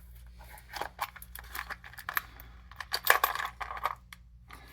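Light clicks and crinkly rustling of a small part and its packaging being handled, irregular and busiest in the middle, over a low steady hum.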